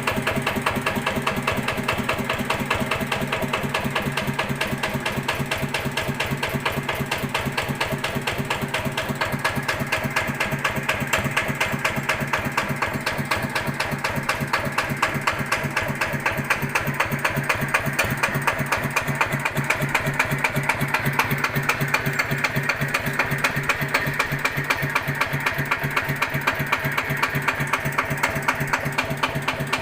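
Yanmar TF105 single-cylinder diesel engine idling at very low speed with a steady, even beat and a strange repeated knocking ('tok tok tok'). The owner is unsure whether the knock means anything is wrong.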